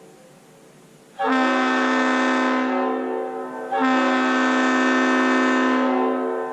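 Leslie RS5T five-chime locomotive air horn, its chambers cleaned and fitted with better diaphragms, sounding two long blasts of about two and a half seconds each; the second starts just as the first dies away, and an echo rings on after them.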